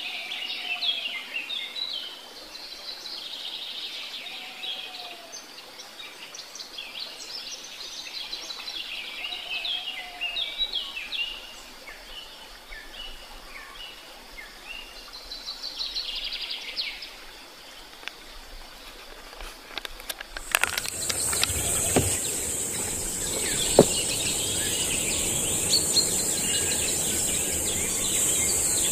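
Small birds chirping in many short, quick calls. About twenty seconds in, the sound switches abruptly to a steady high-pitched insect buzz over louder background noise, with two sharp clicks.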